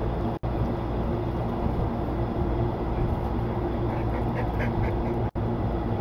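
Large drum fan running steadily with a low hum. A quick run of about five short, high squeaks comes about four seconds in, and the sound cuts out for an instant twice.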